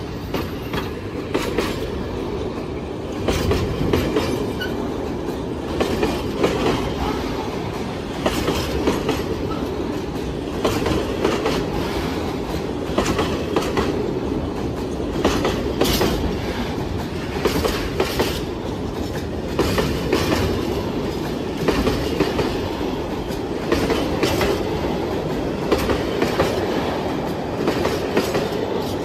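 A train rolling past, its wagon wheels clattering over the rail joints in repeated clicks above a steady rumble.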